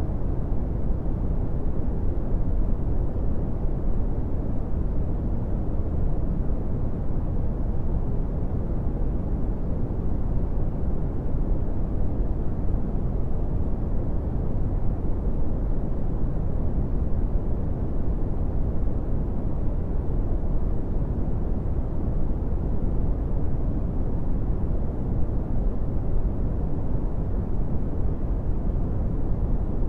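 Brown noise: a steady, deep rushing hiss, strongest in the lows and fading away in the highs, with no changes or events.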